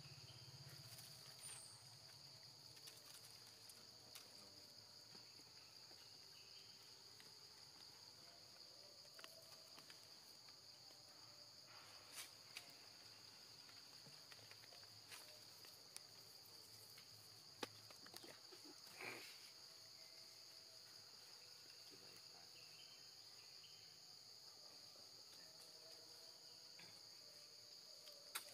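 Faint, steady high-pitched insect chorus, with a few soft clicks and a brief noise about two-thirds of the way through.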